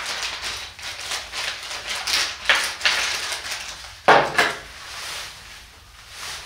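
A metal bicycle handlebar phone holder and its small fittings are handled and set down, giving clicks, rustling and metal clinks. There are two sharper knocks, about two and a half and four seconds in.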